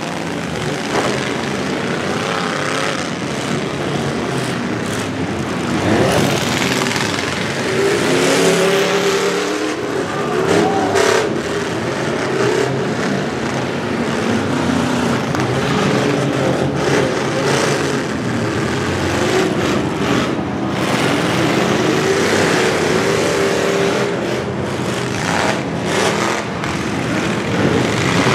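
Engines of demolition derby farm trucks and SUVs running and revving hard on a dirt arena, rising and falling in pitch, with the sudden bangs of bodies ramming into one another several times.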